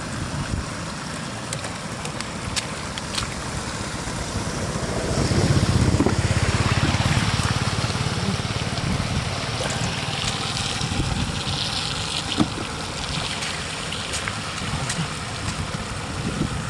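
Shallow muddy water trickling and splashing as catfish thrash and are grabbed by hand, with scattered small splashes over a steady low rumble. The splashing swells for a few seconds about five seconds in.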